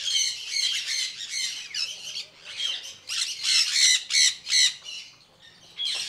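Newly hatched white domestic goslings peeping: a dense run of short, high-pitched calls that breaks off briefly about five seconds in, then resumes.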